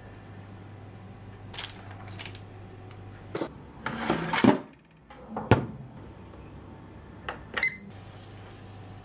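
Baking tray and oven being handled over a low steady hum: a few soft taps, then a louder clatter with sharp clicks in the middle, and a brief ringing metallic clink near the end.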